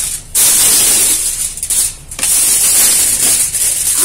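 Aluminium foil and a plastic bag crinkling and rustling loudly as a food package is unwrapped, with two brief lulls.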